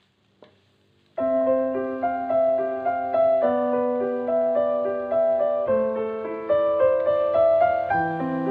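Background piano music that starts abruptly about a second in, after a moment of near silence with a faint click.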